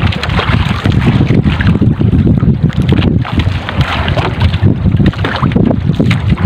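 Strong wind buffeting the microphone, rising and falling in gusts, over the wash of choppy sea water against an outrigger fishing boat.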